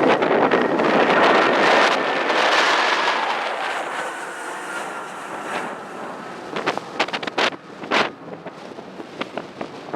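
Jet airliner taking off, its engine noise loud at first and fading away over several seconds, with a faint engine whine falling slowly in pitch as it passes. Strong wind then buffets the microphone in short gusts.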